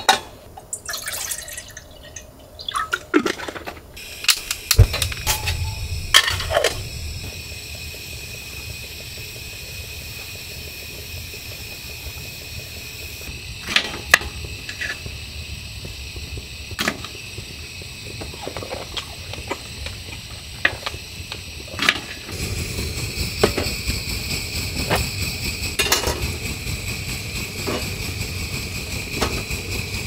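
Gas camp stove burner running with a steady hiss and low rumble, which sets in about four seconds in and grows louder about two-thirds of the way through. Scattered clicks and knocks come from a knife on a wooden cutting board and from metal cookware.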